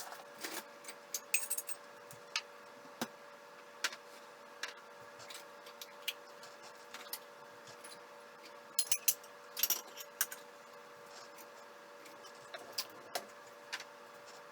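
Dishes and cutlery clinking and knocking together in irregular light clatters over a steady background hum.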